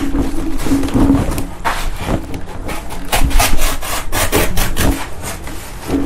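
Scissors cutting through corrugated cardboard: a quick, uneven run of crunching, scraping snips as the blades work along the box wall.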